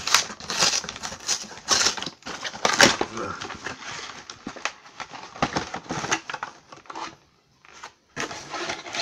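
Plastic wrapping on a Lunchables box crinkling and tearing as it is opened by hand, a busy run of sharp crackly rustles that breaks off briefly before one last burst near the end.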